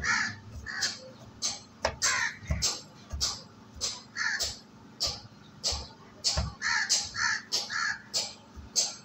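Wooden pestle thudding into coconut oil cake in a wooden mortar, irregular dull strikes about one a second, while crows caw over it again and again.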